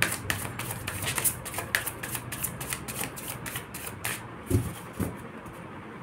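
Deck of tarot cards being shuffled by hand: a quick run of crisp card flicks for about four seconds, then two dull thumps.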